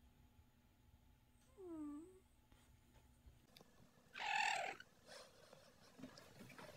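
Cat sounds: a short meow-like call with a dipping pitch about two seconds in, then a louder, harsher cry about four seconds in, over a faint low rumble.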